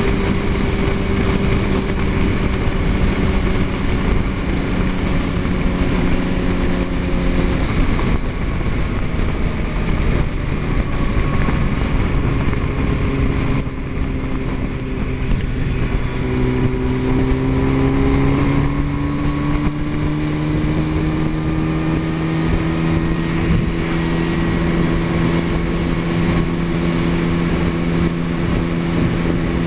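Sport motorcycle engine running at highway speed under wind rush. The engine note drops about a quarter of the way in, then climbs a little past the middle as the bike pulls again, and settles into a steady cruise.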